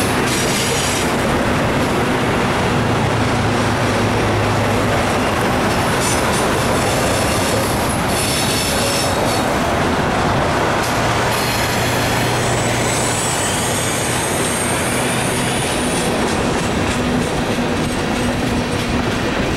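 Freight cars, mostly tank cars and a covered hopper, rolling past close by: a steady loud rumble of steel wheels on rail, with short high-pitched wheel squeals several times and a faint squeal that rises and falls about two-thirds of the way through.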